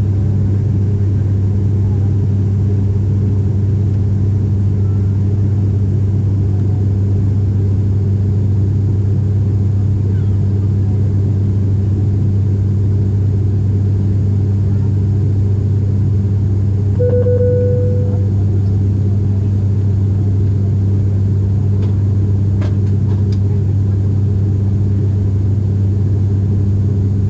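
Steady loud drone of a turboprop airliner's engines and propellers heard inside the passenger cabin, with strong low hum bands that hold an even pitch. A single short beep sounds about 17 seconds in.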